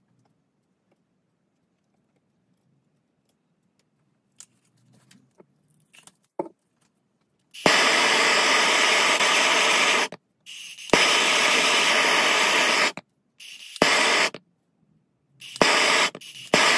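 Handheld gas blowtorch hissing as it heats a brass lid and pipe for soft soldering. The hiss comes in several bursts of one to two and a half seconds from about seven and a half seconds in, most starting with a sharp click, with a few faint handling clicks in the quiet before.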